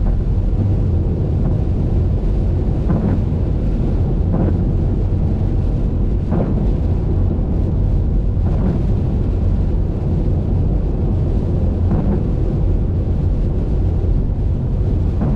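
Steady low rumble of a car driving along a highway: road and engine noise with wind on the microphone, and faint short swells every second or two.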